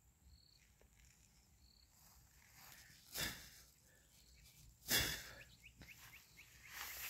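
Very quiet outdoor ambience with a few faint, short high chirps in the first two seconds, then two brief rustles about three and five seconds in.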